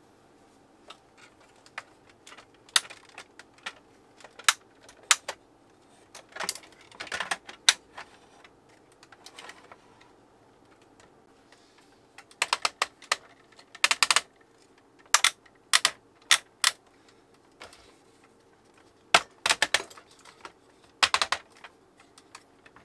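Hard plastic toy parts clicking and clacking in irregular clusters as a large Unicron transforming action figure is handled.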